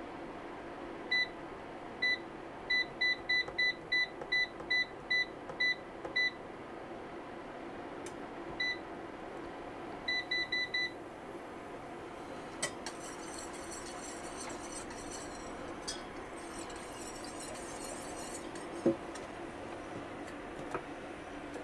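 Kitchen cooker's electronic touch controls beeping with each button press: a run of about a dozen short high beeps, a single beep, then four quick ones, as a heat setting is changed. A few light clicks and taps follow.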